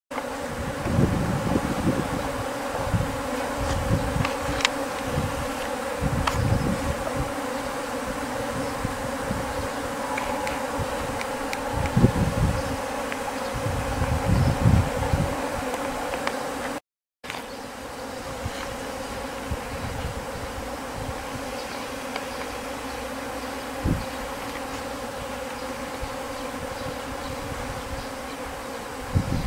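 Swarm of Japanese honeybees in flight: the steady, dense hum of thousands of wings as the colony leaves the hive. Low rumbling bumps come and go through the first half.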